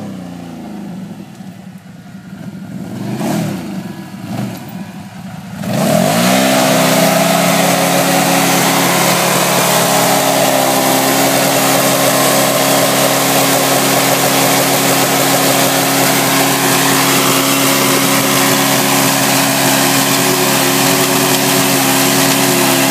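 Can-Am Renegade 800 ATV's V-twin engine revving as the quad comes up, then about six seconds in it is held at high, steady revs while the rear tyres spin on the asphalt in a burnout, a loud continuous din of engine and tyre noise.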